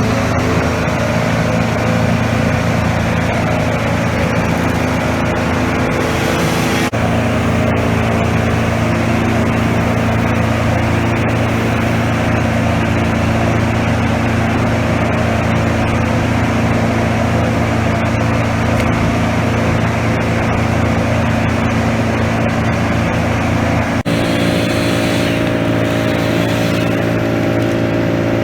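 A large engine running steadily at a constant speed, with a slight shift in its pitch at about seven seconds and again near the end.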